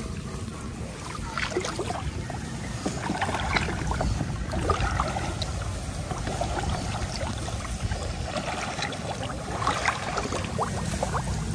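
Water sloshing and splashing with scattered rustles and small knocks as a fish trap is handled in flooded rice.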